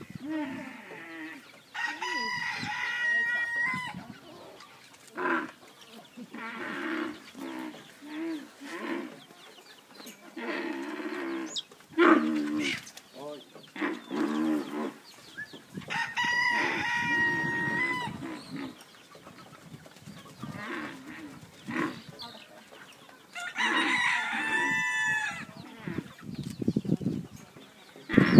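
A rooster crowing three times, each crow a held call of about two seconds that drops at the end. Quieter low sounds come in between.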